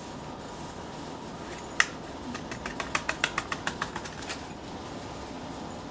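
A plastic weigh boat tapped quickly and lightly against the mouth of a glass bottle to knock Tris powder into the water. One sharp click, then about fifteen quick taps over two seconds, over a steady low room hum.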